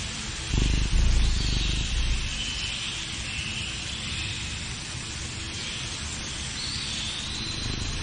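Outdoor natural ambience: a steady hiss with faint wavering high calls, and a low rumble from about half a second to two seconds in.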